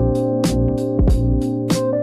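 Background music: sustained keyboard chords over a steady beat of about two drum hits a second.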